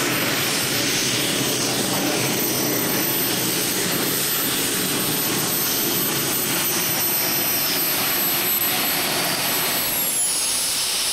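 Modified free-class pulling tractor running at full power under load as it hauls the weight-transfer sled down the track: a loud, unbroken engine noise.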